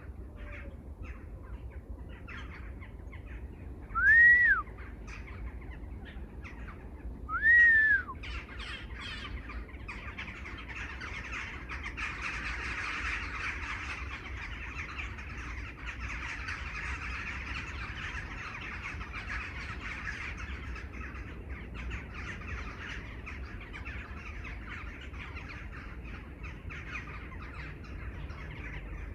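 Birds calling: a loud, clear whistled note that rises and falls, given twice a few seconds apart, then a dense chorus of many birds chattering together.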